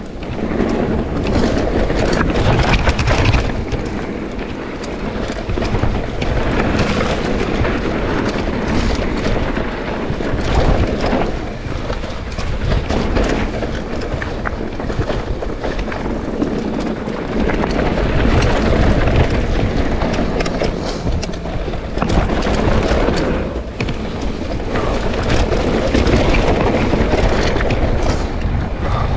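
Mountain bike riding down a bike-park trail: wind rumbling on the microphone and the bike rattling and clattering over bumps, rising and falling in loudness with the terrain.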